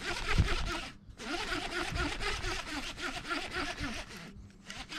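Fishing reel being cranked to retrieve line, a rapid rasping ratchet that pauses briefly about a second in and stops near the end.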